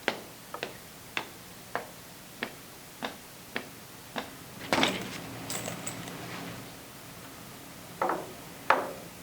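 Foley sound effects: a run of about eight evenly spaced sharp taps, roughly one every 0.6 s. Then comes a clattering, rustling stretch, and near the end two loud knocks.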